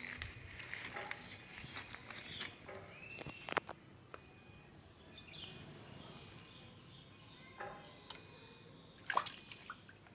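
Scattered small water splashes and drips with a few sharp clicks, the largest splash about nine seconds in, over a steady high-pitched insect drone.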